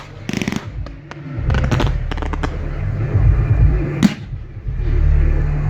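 Fireworks firing at close range: clusters of sharp bangs and cracks about half a second in and around two seconds in, and a single crack about four seconds in, over a heavy low rumble.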